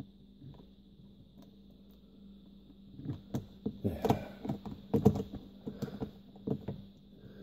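Screwdriver with a T20 Torx bit driving a screw into the plastic dome light housing: an irregular run of clicks and plastic rattles from about three seconds in until near the end.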